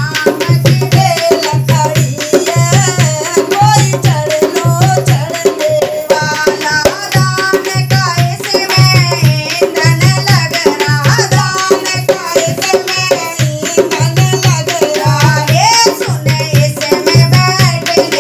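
Women singing a Hindi devotional bhajan to a dholak: the drum head is played by hand with a steady low beat about twice a second, while a spoon struck on the drum adds a fast clicking rhythm.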